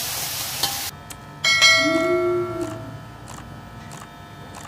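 Hot wok sizzling until it cuts off abruptly about a second in. Then a bright bell chime rings out about a second and a half in and fades over a second or so; it is the loudest sound here and is probably an edited-in transition effect.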